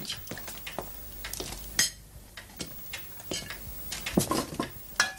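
Soup being served at a table: a ladle knocking against a pot and plates clinking as they are set down and filled, in irregular short clinks and knocks.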